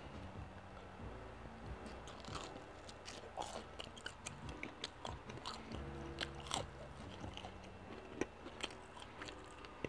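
Close-up chewing of Little Caesars stuffed-crust pizza crust and Crazy Bread dipped in ranch, with many small wet mouth clicks and smacks. Twice a low steady hum comes in for a second or so.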